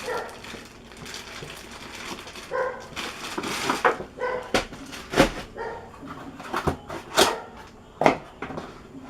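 Laptop charger and its packaging being handled: a run of sharp clicks and knocks, with a few short pitched squeaks in between.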